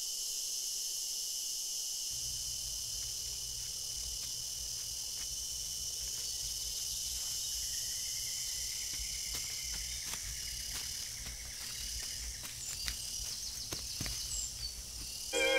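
Steady chorus of crickets and other insects, with a low rumble that comes in about two seconds in and scattered faint crackles in the second half.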